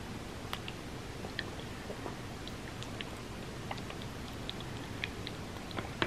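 Close-miked chewing of mochi ice cream, with short wet mouth clicks scattered through, over a steady hiss.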